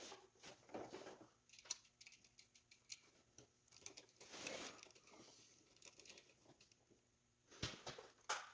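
Faint handling noises: scattered light clicks and rustling, with two sharper clicks near the end.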